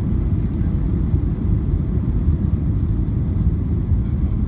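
Steady low rumble inside a jet airliner's cabin on final approach, the engines and airflow over the extended flaps blending into one even roar.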